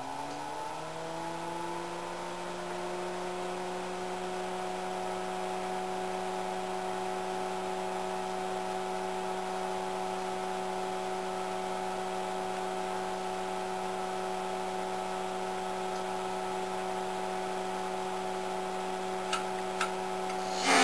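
Tektronix TDS-654C oscilloscope just switched on: its cooling fan spins up, the whir rising in pitch over the first couple of seconds, then runs at a steady hum. A couple of faint clicks come near the end.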